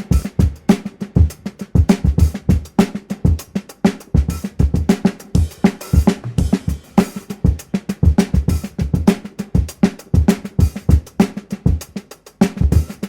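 Full drum kit played continuously in a fast, busy groove, with low bass drum kicks under sharp snare hits and rimshots, and cymbals ringing over them.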